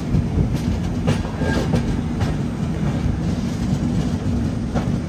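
Loaded open hopper wagons of a goods train rolling past: a steady low rumble of wheels on rail, with clacks at irregular intervals as wheels cross rail joints.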